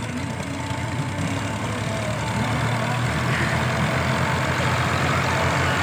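Two farm tractors' diesel engines running steadily as they pull levelling scrapers through sand, growing louder as they approach.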